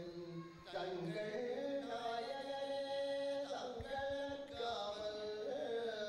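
A man's voice chanting a Hindu temple verse in a sung style, holding long notes that glide slowly in pitch, with brief pauses for breath.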